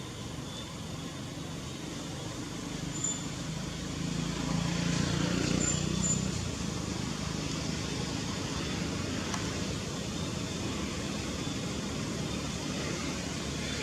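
Steady outdoor background noise with a motor vehicle passing, its low hum swelling about four seconds in and fading after about six seconds.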